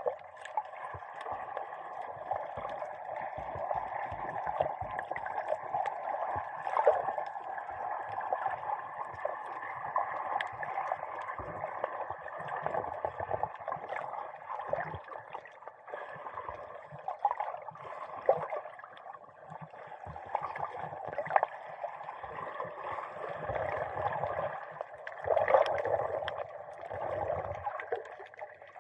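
Muffled underwater water noise picked up by a camera sealed in a waterproof dive case: continuous sloshing and gurgling with many small clicks, swelling a little now and then.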